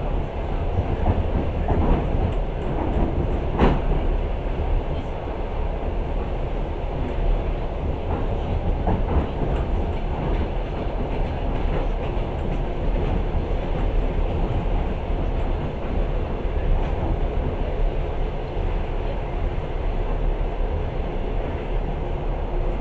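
Passenger train running along the track, heard from inside the carriage: a steady low rumble of the wheels with occasional clicks, the sharpest one a little under four seconds in.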